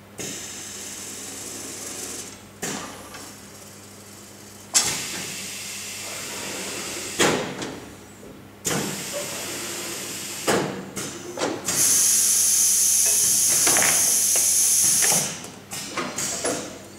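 Pneumatic actuators on an automatic paint-bucket filling, lid-placing and lid-closing line cycling: a series of sudden clunks, each followed by a short hiss of escaping compressed air. About twelve seconds in, a loud steady air hiss runs for roughly three seconds, followed by a few more quick clunks and hisses.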